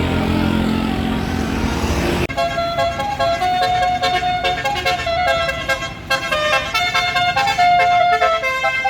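Tour bus engine and traffic rumble, then from about two seconds in a Basuri multi-tone 'telolet' horn playing a tune of quick stepped notes.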